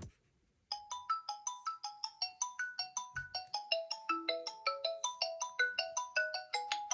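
Mobile phone ringtone: a quick melody of short, bright, mallet-like notes, about four a second, starting just under a second in after a brief silence. A lower held note joins about four seconds in.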